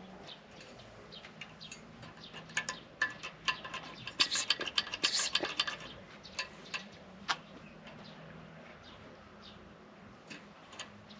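Light clicks and clinks of hard parts being handled, a dense cluster of them from about two to five seconds in and only scattered ones after, over a faint low steady hum.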